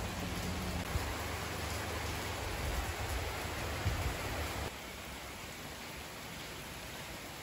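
Heavy tropical rain pouring down steadily, an even hiss of rain on surfaces that drops a little softer about two-thirds of the way through.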